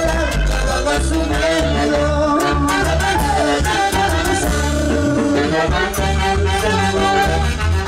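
Live Andean dance band with saxophones and trumpets playing a tune over a steady bass beat, with singers on microphones, amplified through a stage sound system.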